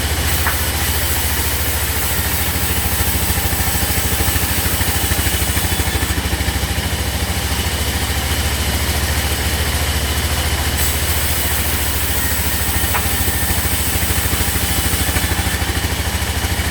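A sawmill's engine running steadily at idle, with a fast, even low throb.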